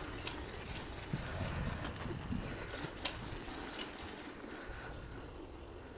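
Steady rolling and wind noise from moving along an asphalt street, with a few faint clicks and rattles.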